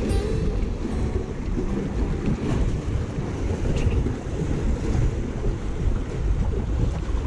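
Wind noise on the microphone with sea waves washing against concrete breakwater blocks.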